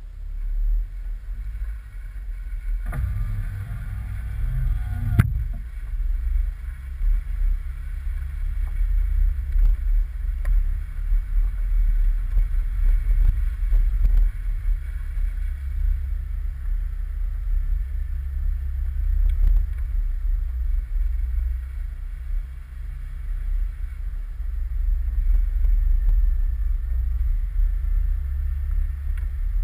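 Jeep Wrangler JK driving off-road, heard from a hood-mounted camera: a steady low rumble of engine and drivetrain that rises and falls. A brief louder, rattly stretch ends in a sharp click about five seconds in.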